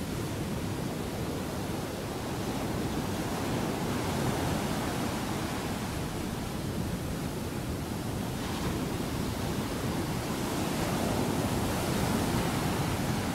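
Pacific Ocean surf breaking and washing onto a beach: a steady rushing that swells louder a few seconds in and again near the end.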